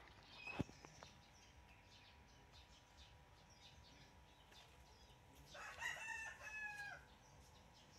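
A rooster crowing once, a call of about a second and a half starting about five and a half seconds in. A single sharp knock sounds just after the start.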